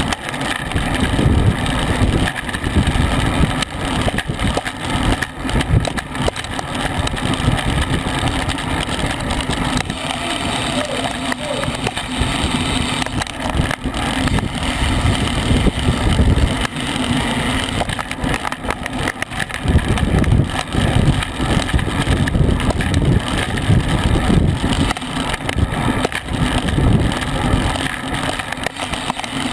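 Wind rushing and buffeting over the microphone of a camera mounted on a racing bicycle riding at about 20 mph: a steady low rumble that keeps swelling and dipping.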